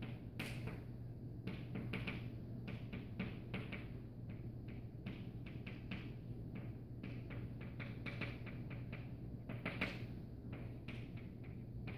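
Chalk tapping and scratching on a chalkboard as words are written, a quick irregular run of short taps and scrapes, over a steady low hum.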